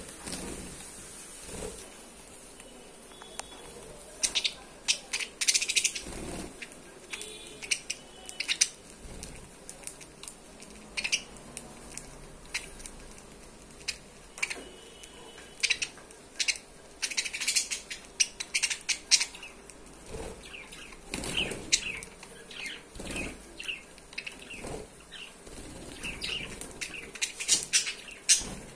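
Caged budgerigars chirping and chattering in quick, scattered bursts of high notes.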